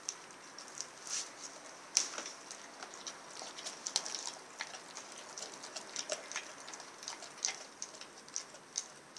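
A Rottweiler chewing a whole raw turkey: irregular crunching and clicking of its teeth on meat and bone, several clicks a second, with a few louder crunches about two and four seconds in.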